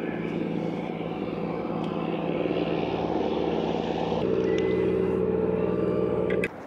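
Small boat's outboard motor running steadily, its tone shifting about four seconds in, then cutting off suddenly near the end.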